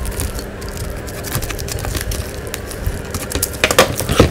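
Plastic-and-tape wrapping on a small box crackling and rustling as it is handled close up, then a small cutter blade scraping and slicing through the wrapping in a few louder strokes near the end.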